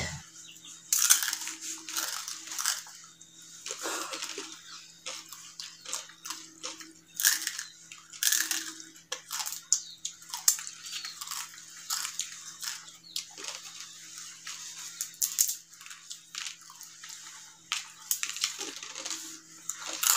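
Crisp fried murukku being bitten, chewed and snapped apart by hand: loud, irregular crunches and cracks close to the microphone. A faint steady hum runs underneath.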